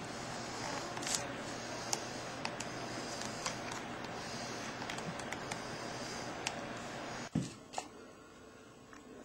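Speaker wire being wound by hand into a flat pancake coil: light rustling and scattered small clicks of the wire and fingers against the disc, over a steady hiss. A single thump about seven seconds in, after which it goes quieter.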